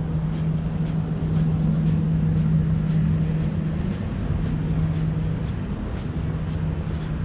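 A steady low mechanical hum with a rumble beneath it, a little louder in the middle, with faint regular ticks over it.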